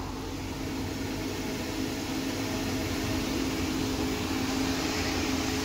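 Diesel truck driving, heard from inside the cab: a steady engine drone with a held low tone, mixed with road and wind noise.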